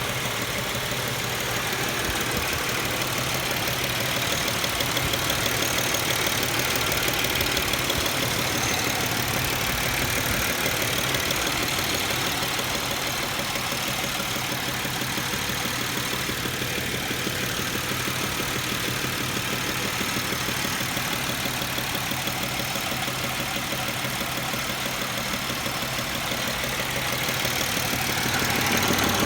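GM 3800 V6 engine of a 2007 Pontiac Grand Prix idling, with a rapid, steady knocking. The knock comes only once the engine has warmed up; when cold it is silent.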